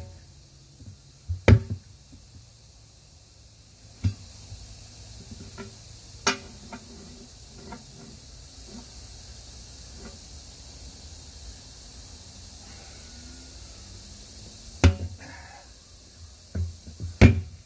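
Steel tire irons knocking and scraping against a steel 19.5-inch truck wheel as the tire bead is worked by hand. There are several separate sharp metal strikes, the loudest about a second and a half in and twice near the end, with lighter ticks between them.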